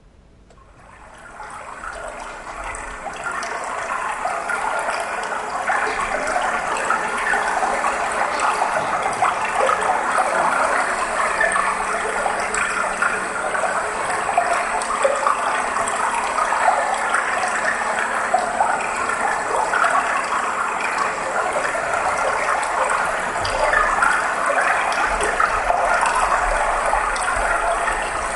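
A steady rushing noise like running water, fading in over the first few seconds and then holding even.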